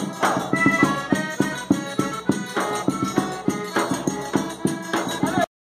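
Live band music: an accordion playing a melody over a steady bass-drum beat, with tambourine jingles and cymbal. The sound cuts off suddenly near the end.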